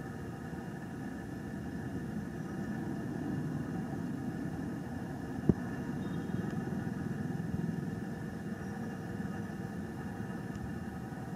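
A steady, unchanging mechanical hum like an idling engine, with several fixed tones over a low rumble. One sharp click comes about five and a half seconds in.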